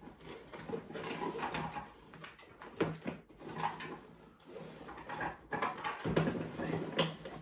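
Tools being handled and rummaged through: irregular rustling and clattering with scattered clicks, a sharper knock about three seconds in and another near the end.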